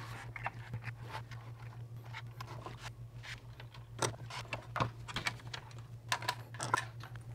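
Irregular small plastic clicks and clatter as a Neptune EB832 power strip is worked open with a small tool and its outlet circuit board is handled in the plastic case, with a few sharper clicks about four seconds in and again near the end. A steady low hum runs underneath.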